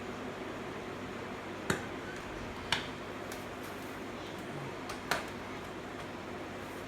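Three sharp clicks, about a second in, near the middle and about two seconds later, over a steady hiss with a faint low hum.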